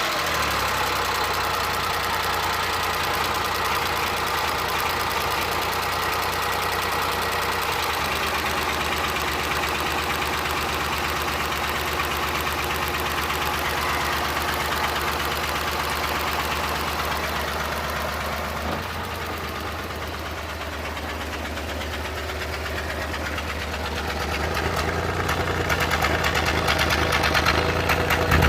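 Suzuki Multicab's F6A three-cylinder engine running with a random misfire while the accelerator is worked. It gets quieter about two-thirds in, then louder again near the end.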